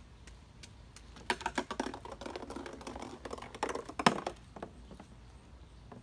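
Small plastic balls clattering against a plastic water table: a rapid run of light clicks and knocks lasting about three seconds, with the loudest knock near the end.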